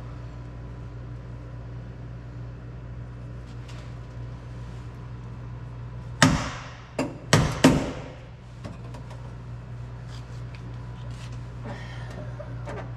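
Pneumatic riveting tool setting a rivet: four sharp snaps with bursts of air hiss, about six to eight seconds in, over a steady low hum.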